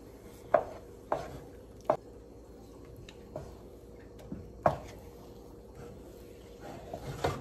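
A wooden spoon stirring a thick, sticky ube kalamay paste in a pot, with about five sharp knocks of the spoon against the pot. The paste has thickened and is nearly cooked.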